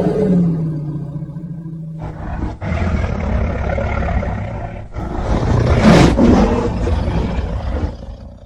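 Godzilla-style monster roar sound effect: one roar dies away over the first two seconds, then a second, rough roar starts, is loudest about six seconds in, and fades out near the end.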